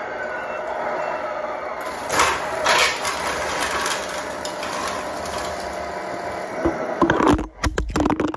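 Tamiya Grand Hauler 1/14 RC truck's electric motor and gearbox whining steadily under load as it strains against a pull sled, with two louder bursts about two and three seconds in. Near the end, a quick run of knocks and clatter as the camera is handled.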